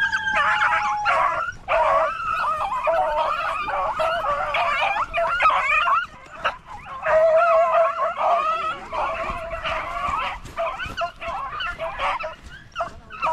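A pack of hunting dogs, beagles, baying and yelping on a rabbit's trail, several voices overlapping almost without pause, with a brief lull about six seconds in.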